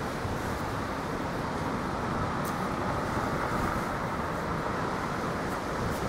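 Strong wind buffeting the microphone: a steady rushing rumble that swells a little mid-way.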